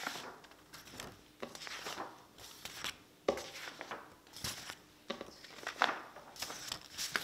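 Sheets of paper being shuffled and gathered by hand, a string of short, irregular crinkly rustles.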